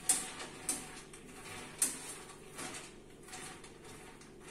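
A metal spoon scraping and tossing peanuts on a metal baking tray in the oven, with the nuts rattling. Three sharp clinks of spoon on tray come in the first two seconds, then softer scraping.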